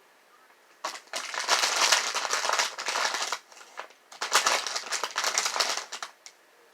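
Plastic candy bag crinkling as a hand rummages through it, in two long spells of crackling, one starting about a second in and one about four seconds in.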